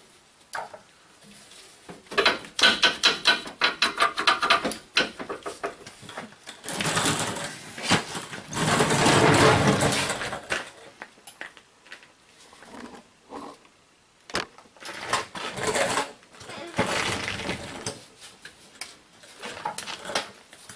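Steel transmission cooler lines clattering and scraping against the truck's frame and underbody as they are fed through by hand. A fast metallic rattle comes about two seconds in, and a longer, louder scraping rush comes in the middle.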